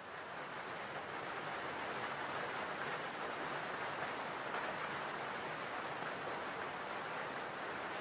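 Steady rain falling, an even hiss that swells in over the first second or so and then holds level.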